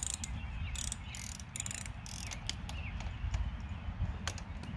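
Socket ratchet clicking as a bolt is tightened: several short runs of clicks in the first couple of seconds, a pause, then a few more clicks near the end.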